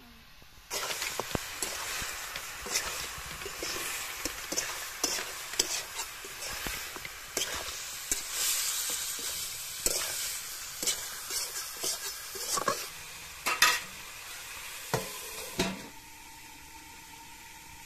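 Chicken pieces frying and sizzling in hot oil in a steel kadai, with a spoon scraping and clicking against the pan as they are stirred. The sizzling starts suddenly about a second in. Near the end a few louder knocks come, and then the sizzling goes much quieter once a steel lid covers the pan.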